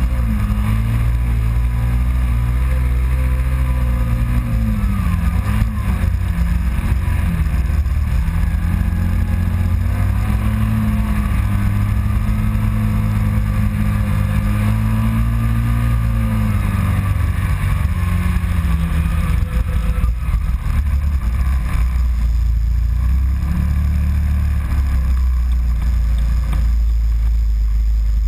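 Kawasaki Teryx side-by-side's V-twin engine running under load on sand, its pitch rising and falling as the throttle changes over the dunes, with a steady rush of wind and driving noise over it.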